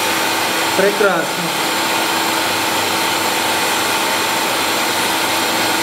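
Machine spindle spinning a grinding wheel against the oiled face of an aluminium automatic-transmission bell housing, face grinding in oil: a steady whir with a constant hum in it.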